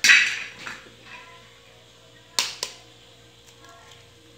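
Eggs being cracked into a plastic bowl of grated potato: a clattering knock at the start, then two sharp taps in quick succession about two and a half seconds in, like an eggshell struck on the bowl's rim.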